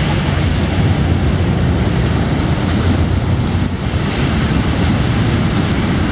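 Surf breaking and wind buffeting the microphone, under a low steady drone of distant racing powerboat engines that weakens a little past halfway.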